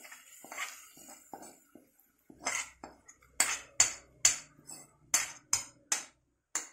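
A steel spoon scraping and knocking against a metal kadai to empty it. A few soft scrapes come first, then about nine sharp metal clinks, roughly two a second.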